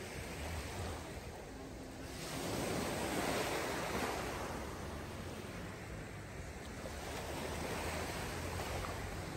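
Small sea waves breaking and washing over a fine-pebble beach, swelling twice, about two seconds in and again near the end. Wind rumbles on the microphone underneath.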